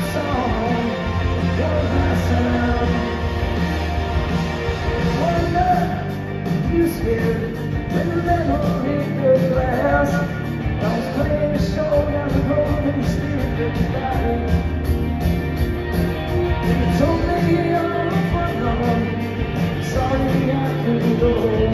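Live rock band playing through a concert hall's sound system, heard from within the crowd: electric guitars, bass and drums with singing, and a steady cymbal beat that picks up about six seconds in.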